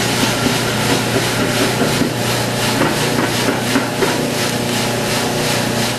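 Coffee roaster's cooling tray running: the rotating stirrer arms sweep freshly roasted beans around the perforated tray while a fan draws air through them, a steady rattling rush over a low, constant hum. The batch is being cooled after it has been dumped from the drum.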